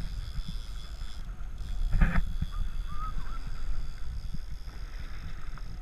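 Low, steady rumble of a fishing boat at sea with wind buffeting the microphone, broken by a short louder noise about two seconds in and a few faint high chirps just after it.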